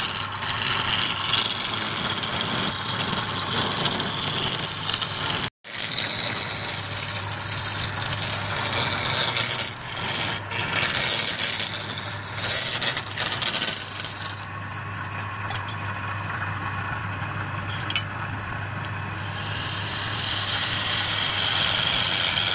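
Hand-held turning chisel scraping the surface of a wooden blank spinning on a wood lathe: a continuous rasping scrape over a steady low hum. The scrape lightens for a few seconds after the middle, then comes back harder near the end.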